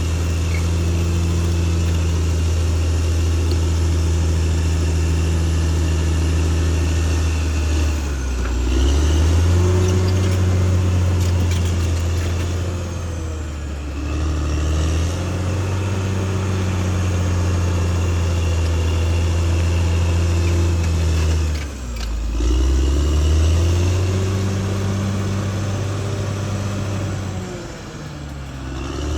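Caterpillar D6R XL bulldozer's diesel engine running steadily at working speed, its pitch dipping briefly and climbing back about four times.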